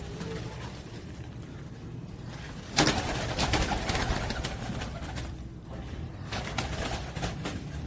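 Domestic pigeons cooing in a loft, with a sudden loud rustling burst about three seconds in and more scattered rustling later.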